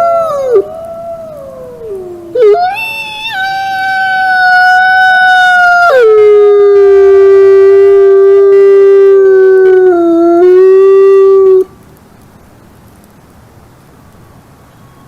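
Wolves howling in chorus: several long howls overlap at different pitches, one sliding down to a low note held for several seconds. The howling cuts off abruptly about three quarters of the way through, leaving a faint hiss.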